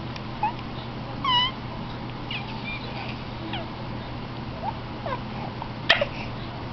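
Infant squealing and cooing: several short, high-pitched squeaks and little gliding sounds, the clearest about a second in, over a steady low hum.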